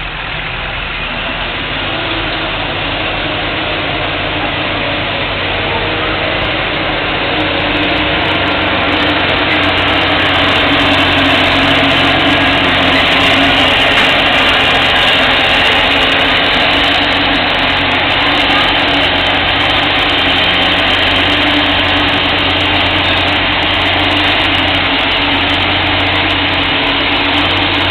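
Fendt 920 tractor's six-cylinder diesel engine working hard under full load while pulling the sled. It grows louder over the first several seconds, then holds steady.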